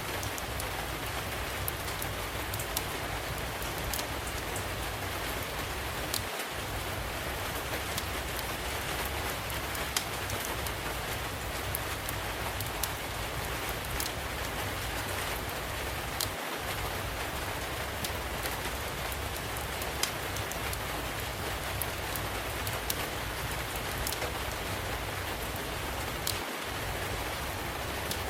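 Steady rain, with scattered sharp crackles and pops of a wood fire over a low steady rumble.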